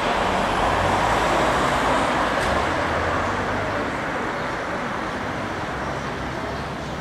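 Steady rumbling background noise with a low hum, a little louder in the first couple of seconds and easing off toward the end.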